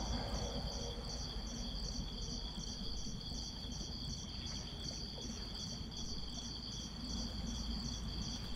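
Insects chirping, cricket-like: a steady high trill with a pulsed chirp repeating about three times a second, over a low background rumble.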